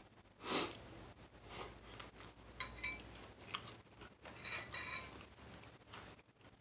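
A metal eating utensil working in a bowl of noodles: a short scrape about half a second in, then several light clinks against the bowl, each ringing briefly.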